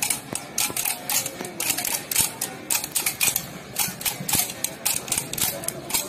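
Rapid, irregular clicking and tapping, several sharp clicks a second, with faint crowd voices behind.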